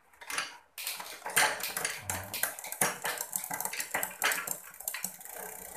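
Bicycle chain running over the rear cassette and derailleur as the drivetrain is turned through a shift test, a dense metallic clatter and clicking that begins about a second in. The chain does not climb onto the last sprocket, a sign that the derailleur's limit screw is set too tight.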